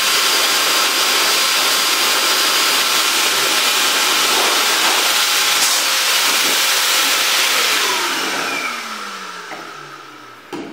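Pet blower (high-velocity dog dryer) running flat out with a loud, steady rush of air. About eight seconds in it is switched off and the motor winds down with a falling whine. There is a short knock near the end.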